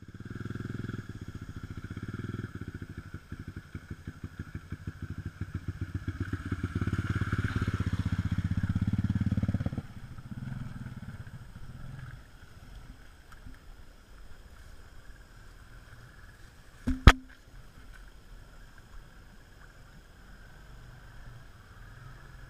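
ATV engine running with a pulsing exhaust note as it drives into deep water. It gets louder under throttle, then drops sharply about ten seconds in and dies away within a couple of seconds as the quad sinks into the water. Near the end there is a single sharp knock.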